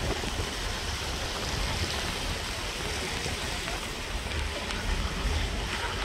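Gusty wind ahead of an approaching hurricane, rushing steadily and buffeting the microphone with a low rumble.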